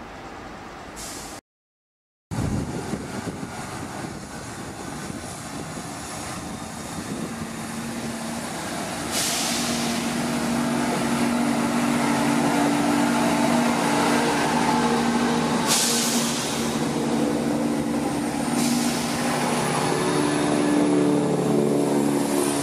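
Cross Country Class 170 Turbostar diesel multiple unit running in alongside the platform, its underfloor diesel engines humming steadily as the noise builds. Three short air-brake hisses come at intervals in the second half.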